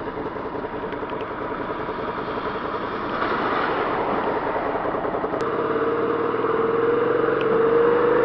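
Suzuki SV650 V-twin engine running under way over a steady hiss of wind and wet-road noise. From about five seconds in the engine note climbs slowly and gets louder as the bike accelerates.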